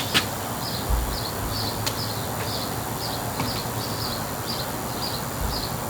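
Cricket chirping steadily, a little over two short chirps a second, over a steady low hum, with a couple of sharp clicks near the start and about two seconds in.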